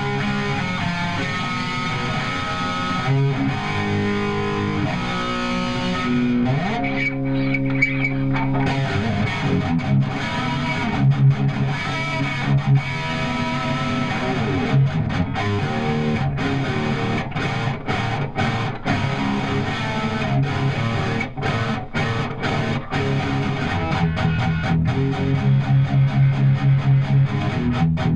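Distorted electric guitar played through a Cameron tube amplifier head, riffing, with a run of fast even chugs near the end.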